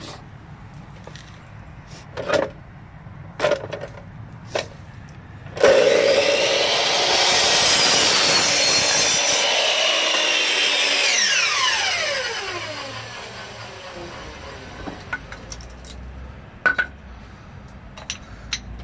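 A power cutting tool starts about five and a half seconds in and runs loudly for several seconds, cutting. On release it spins down with a falling whine. A few sharp knocks of handling come before and after.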